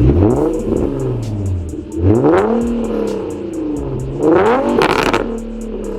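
Infiniti G37's 3.7-litre V6 revved three times in quick blips, each rising in pitch and falling back toward idle. The exhaust has headers and no catalytic converters, and the leak has been fixed: no tick, a cleaner sound.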